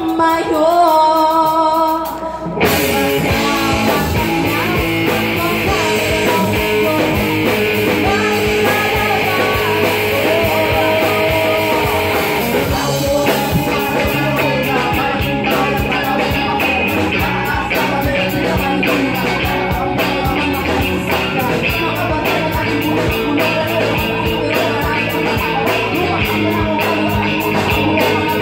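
Live rock band: a female singer's held notes with little behind them, then drums and electric guitars come in together about two and a half seconds in and the full band plays on, the singing continuing over it.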